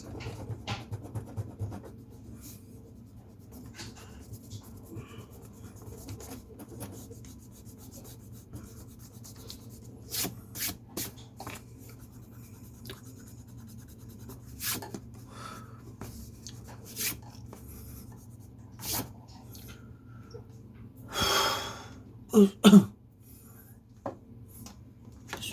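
Drawing strokes scratching on paper with scattered light clicks. About 21 seconds in there is a breathy rush, followed by two short sharp coughs, the loudest sounds.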